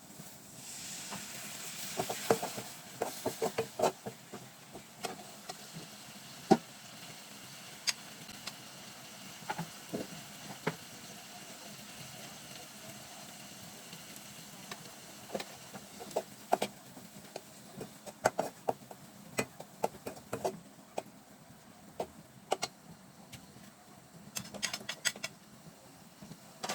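Frying chickpeas sizzling in a pan, with a hiss that swells about half a second in and dies down after a few seconds, while a spatula knocks and scrapes against the pan at irregular intervals as they are stirred.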